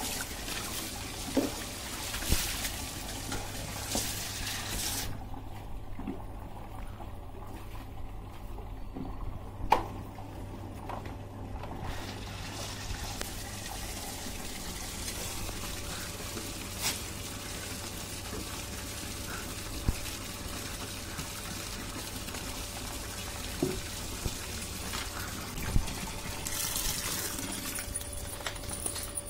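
Tap water running steadily into a plastic tub, with occasional short splashes and knocks as water is poured from a mug over a wet dog. The hiss of the running water thins out for several seconds about a fifth of the way through.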